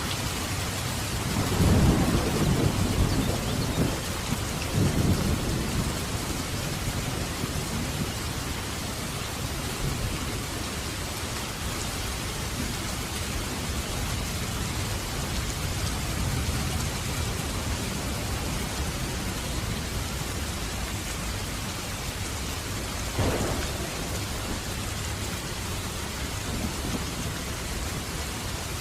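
Heavy rain falling steadily, with low rumbles of thunder a couple of seconds in and again around five seconds, and another short rumble about three quarters of the way through.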